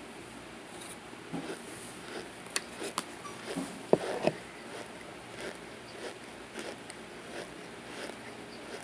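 Dry, crumbly material crunching and crackling in a run of sharp crackles and clicks, densest and loudest about halfway through, then tapering to faint ticks.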